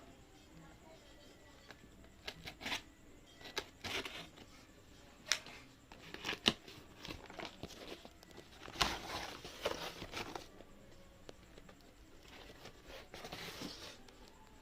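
Packaging being torn open and crinkled by hand: irregular rustles, crackles and sharp snaps, busiest in the middle.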